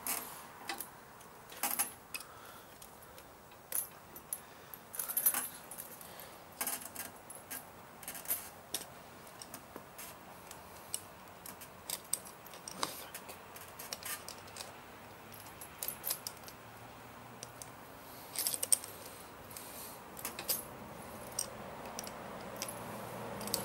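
Steel tire chain links clinking and rattling as they are worked tight around a snowblower tire: irregular sharp metallic clicks and jingles, with the loudest clusters about five seconds in and again near eighteen seconds.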